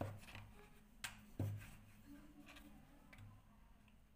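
Wooden rolling pin working thin maida dough rounds on a wooden board. It is faint, with a few light knocks of the pin against the board, mostly in the first second and a half.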